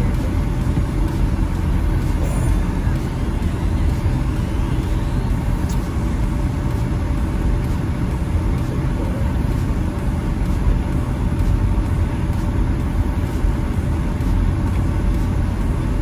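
Steady road noise inside a moving car's cabin: the engine and the tyres on a snow-covered highway make an even, low rumble that doesn't change.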